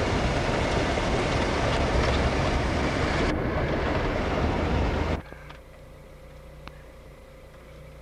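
Road rumble and wind noise of a moving vehicle, picked up by a camcorder filming from inside it. About five seconds in it cuts off suddenly to a much quieter low steady hum.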